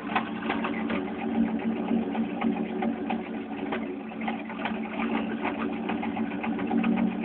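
Chevy 305 small-block V8 idling rough: a steady hum with a fast, irregular ticking over it. The owner can't find the cause of the rough idle.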